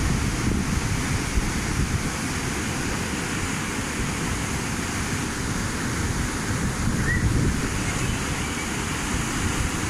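Flash floodwater rushing steadily through a yard and street, a continuous noisy rush with a low rumble under it.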